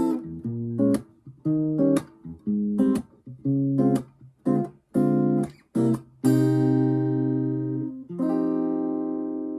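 Background music: an acoustic guitar strumming chords in short, clipped strokes about twice a second, then two chords left to ring out, the second about two seconds after the first.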